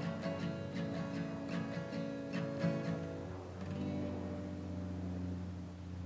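Acoustic guitar strumming, then a final chord left ringing out and slowly fading at the end of the song.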